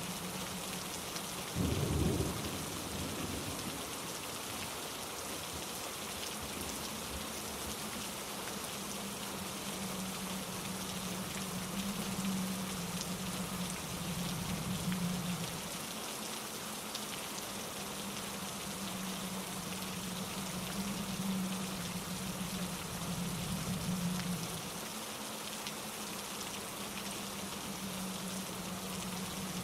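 Steady rain hissing on leaves and rocks, with a short low rumble about two seconds in.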